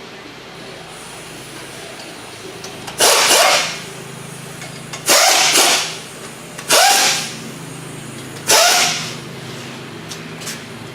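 Power impact wrench run in four short bursts, each spinning up quickly, driving in the bolts that fix the engine-stand mounting bracket to a 6.7 Powerstroke diesel block. A steady low hum runs underneath.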